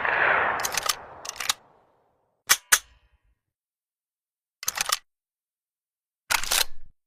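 The echo of a Mosin-Nagant carbine shot dies away over the first second and a half. The rifle's bolt is then worked in short groups of sharp metallic clicks and scrapes, three or four groups a second or two apart.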